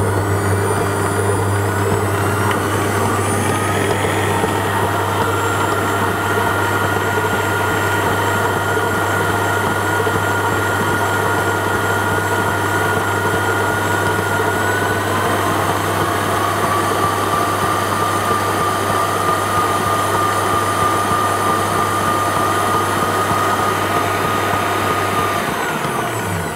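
Kenwood kMix stand mixer's motor running steadily as its K-beater mixes muffin batter. The whine shifts pitch twice as the speed dial is turned, then the motor winds down and stops near the end.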